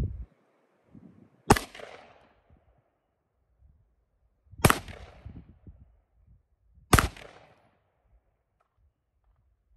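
Three single rifle shots from a 20-inch .223 Wylde barrel firing 5.56 mm M855A1 rounds: the first about a second and a half in, the next about three seconds later, the last about two seconds after that. Each shot is followed by a short echo.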